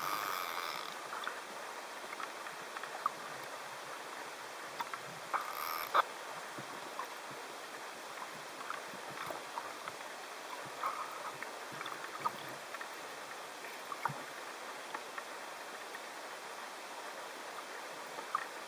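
Underwater ambient noise: a steady hiss with scattered small clicks and knocks, the sharpest about six seconds in, and a short rush of noise right at the start.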